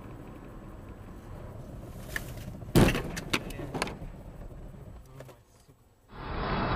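Car collision picked up by a dash-cam microphone: steady road noise, then a loud bang about three seconds in followed by several rattling knocks. A louder steady noise starts abruptly near the end.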